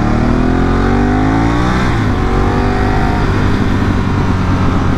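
Ducati 1198's L-twin engine pulling up through the revs for about two seconds, dropping back about two seconds in, then running on with a steady low rumble at low road speed.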